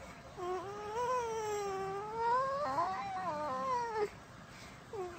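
A cat giving one long, wavering yowl lasting about three and a half seconds, rising and falling in pitch, then a short call near the end.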